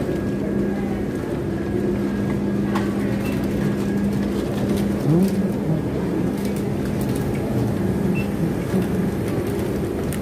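Airport terminal ambience: a steady low hum over a wash of background noise, with a few faint ticks and a short rising squeak about five seconds in.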